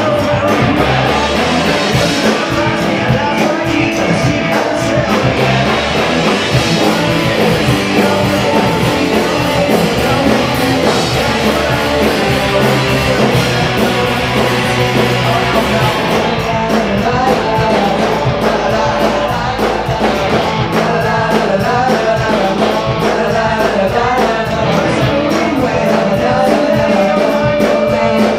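A rock band playing live and loud: electric guitar, bass guitar and drum kit, with a singing voice.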